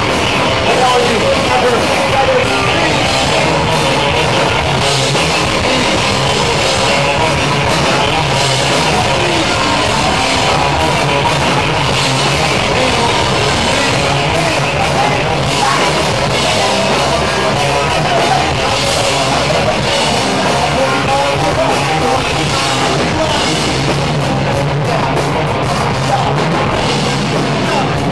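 Live punk band playing loud and without a break: electric guitar and a drum kit with cymbals.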